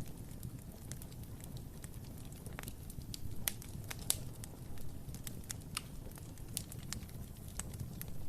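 Fire crackling in a fireplace: a steady low rumble of flames with scattered sharp pops and snaps, a couple of louder pops about three and a half and four seconds in.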